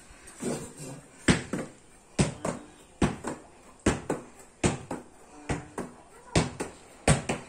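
Netball thrown against a hard surface and caught, over and over: a sharp smack about every second, often followed by a softer slap.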